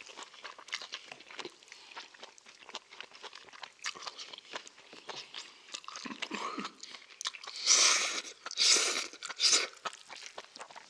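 Close-miked eating of bibimbap: chewing and biting, with spoons and chopsticks clicking and scraping against ceramic bowls. A few louder bursts of eating noise come about eight to ten seconds in.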